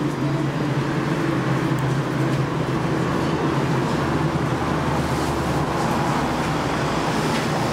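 A steady mechanical hum with a rushing noise over it, holding even throughout.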